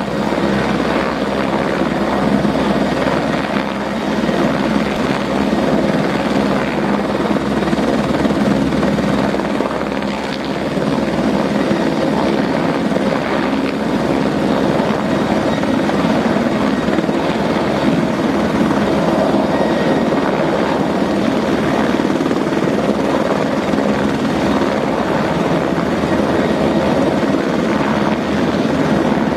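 Aérospatiale AS355F2 TwinStar helicopter, its twin Allison 250 turboshaft engines and main rotor running steadily and loudly close by, with the rotor turning.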